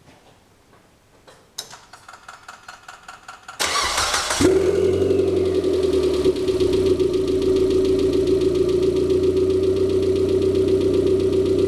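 Mitsubishi 4G93T 1.8-litre turbo four-cylinder being cranked by the starter for about two seconds, then catching and settling into a steady idle. The hydraulic lifters are tapping, which is put down to the engine having been apart and oil not yet pumped through.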